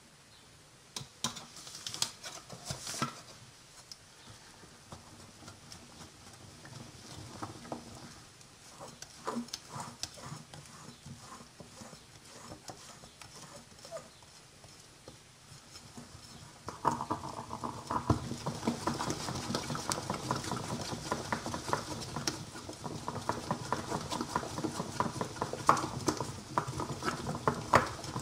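A silicone-coated whisk stirring flour into a thick batter in a ceramic bowl. Scattered taps and scrapes at first, turning into fast, steady whisking a little over halfway through.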